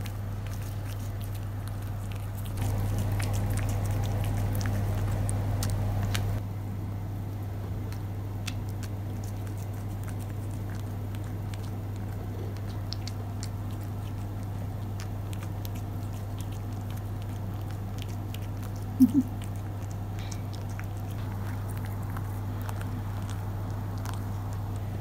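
A cat eating dried bonito flakes from a ceramic bowl: many soft, quick clicks of chewing and licking over a steady low hum, which swells for about four seconds near the start. Two brief, loud squeaks come about three-quarters of the way through.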